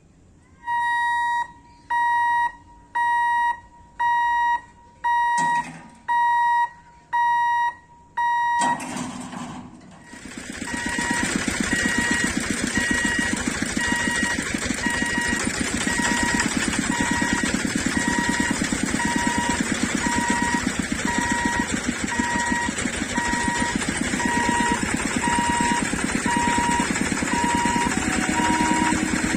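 Level-crossing warning alarm at a railway gate beeping, about once a second, eight times. About ten seconds in, a loud steady rumble of the EMU local train passing sets in, and the beeping goes on over it, shorter and faster, about twice a second.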